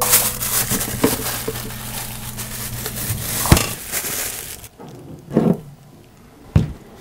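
Dense rustling and crackling of things being handled, with small knocks mixed in; it stops about four and a half seconds in, leaving a couple of short knocks.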